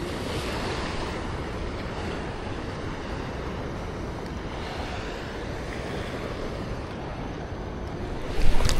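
Steady wash of surf on the shore with wind on the microphone; a brief, loud knock near the end.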